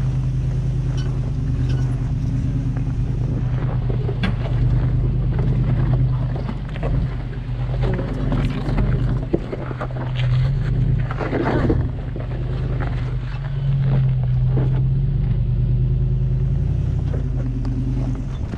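Off-road vehicle engine running steadily at low speed, with scattered knocks and clatters over it.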